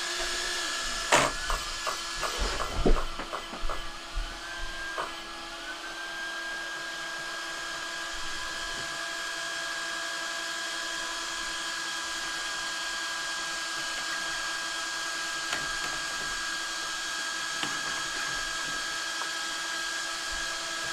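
Perfect Pass steering servo in a Traxxas XRT, powered up and holding its position, giving a steady high-pitched whine over a lower hum. A few clicks and knocks sound in the first few seconds, and the whine steps up slightly in pitch about six seconds in.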